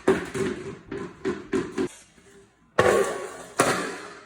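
Clattering of objects being tossed down: a run of sharp knocks in quick succession, a lull of about a second, then more knocks.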